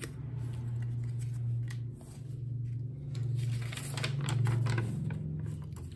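Handling noise from a model-aircraft kit: light taps as thin balsa parts are set down, and a paper instruction sheet rustling as it is picked up about four seconds in, over a steady low hum.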